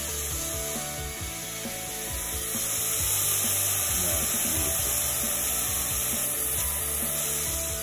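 Diced celery, peppers and garlic sizzling in hot olive oil in a stainless steel pot: a steady frying hiss that grows louder about two seconds in.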